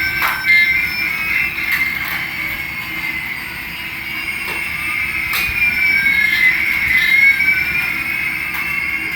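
Small electric motors of a toy RC helicopter whining at a high pitch. Two tones glide in opposite directions, one rising while the other falls, and cross about two-thirds of the way through, with a few sharp clicks.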